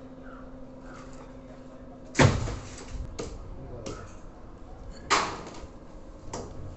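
Two heavy thuds about three seconds apart, each dying away quickly, with lighter knocks between and after them.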